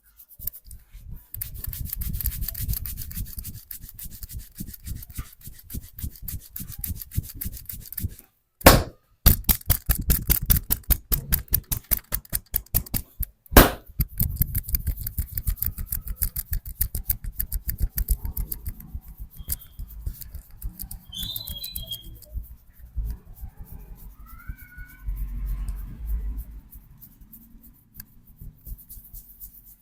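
A barber's hands working a customer's head and scalp in a head massage: fast, rhythmic rubbing and patting strokes, many a second. Two sharp loud snaps stand out about five seconds apart, near the middle.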